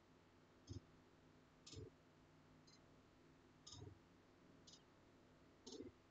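Faint, regular clicking, about one click a second, alternating stronger and weaker, over near-silent room tone.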